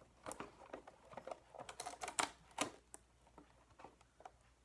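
Duct tape being pressed and worked around a chopstick on a plastic bottle: an irregular run of small crackles and taps, busiest over the first two and a half seconds, then sparse.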